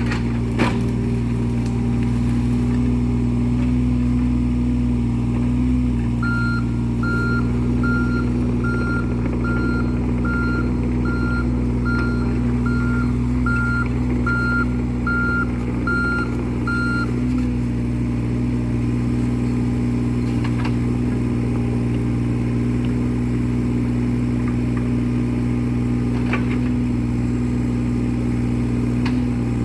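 Excavator's diesel engine running steadily under work, with its travel alarm beeping about once a second for around ten seconds, the warning sounded while the machine moves. There are a few sharp knocks, the loudest just after the start.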